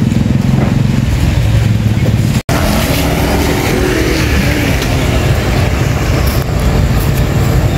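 Steady roadside traffic noise, engines running with a low hum, broken by a brief total silence about two and a half seconds in, with faint voices after it.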